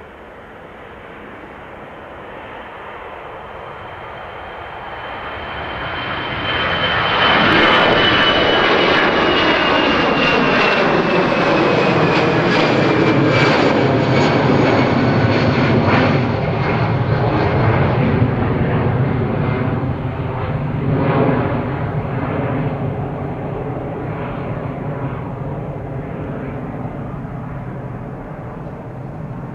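Airbus A320-family twin-jet airliner at takeoff power, lifting off and climbing out past: the jet engine noise builds to its loudest about eight seconds in, with a high whine that slowly falls in pitch, then gradually fades as it climbs away.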